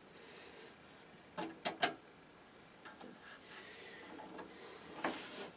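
A network card and its metal bracket being handled inside a PC case: a few sharp clicks and taps, three close together about a second and a half in, with light rustling.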